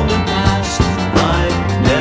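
A pop-rock song from a 1976 album playing: a full band recording with a steady beat.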